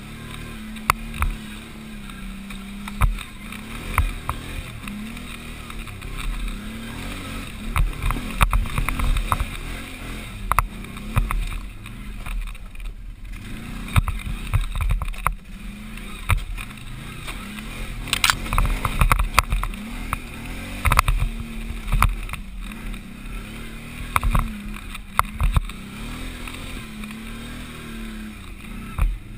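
Can-Am Outlander 500 XT quad's V-twin engine working hard on a climb, its revs rising and falling over and over with the throttle. Frequent sharp knocks and rattles as the ATV bounces over roots and rocks.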